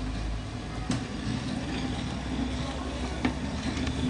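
A pot of tomato sauce boiling, with a few sharp pops, over a steady low hum.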